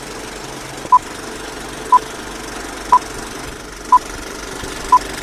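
Film-leader countdown sound effect: a short beep of the same pitch once every second, six times, over the steady clatter of a film projector running.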